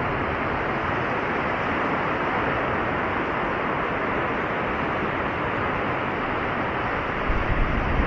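Ocean surf breaking and washing in over a rocky coral-rubble shore: a steady rushing. Near the end, wind gusts buffet the microphone with low rumbles.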